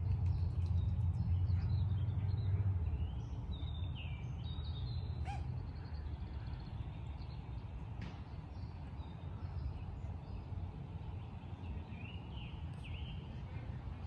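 Small birds chirping and calling now and then over a steady low rumble, which is louder for the first few seconds.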